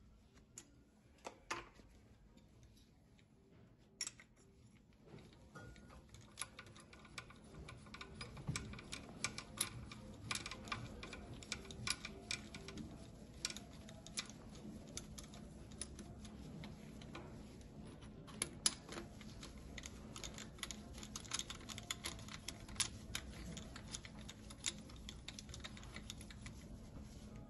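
Faint, irregular metallic clicks and taps of a hand tool working on the cylinder head of a 1.9 TDI diesel engine. The clicks are sparse at first and come thick from about eight seconds in. This is the work of moving the compression-tester fitting from one cylinder to the next during a compression test.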